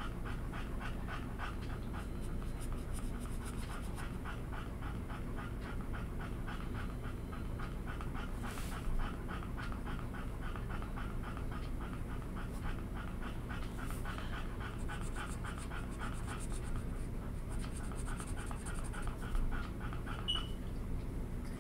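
A dog panting steadily in quick, even breaths.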